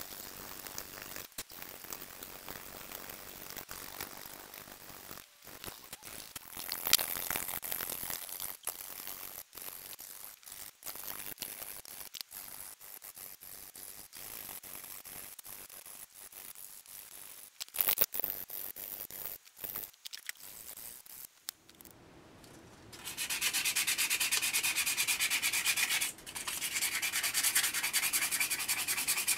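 Hand file scraping across a metal prop receiver clamped in a vise: uneven pushing strokes with short pauses between them. About three quarters of the way in it gives way to a louder, fast, even rubbing as the part is hand sanded.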